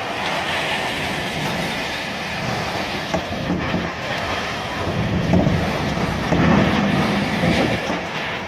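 Hurricane-force wind blowing hard and without a break, swelling louder in gusts about halfway through.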